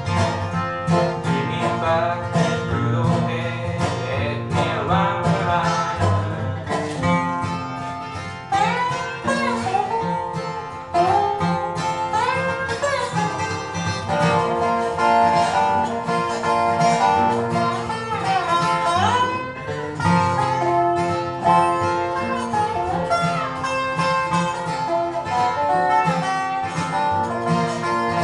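Dobro (resonator slide guitar) and acoustic guitar playing an instrumental break of a bluegrass tune, the dobro's notes sliding up and down between pitches over the guitar's backing.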